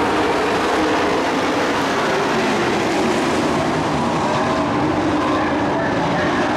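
Several dirt-track stock trucks racing under green, their engines running hard together in a steady, loud mix of engine notes that rise and fall slightly as the trucks go past.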